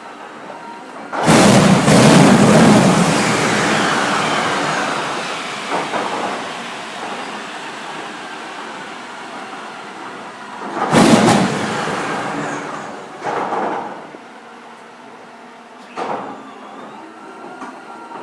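Wright R-3350 eighteen-cylinder radial aircraft engine on a start attempt, firing in a sudden loud burst about a second in that dies away over several seconds. A second loud burst comes about eleven seconds in, with shorter ones near thirteen and sixteen seconds. It catches but won't run on, getting enough fuel to fire but not to run, which the crew suspects is a fuel pump too small.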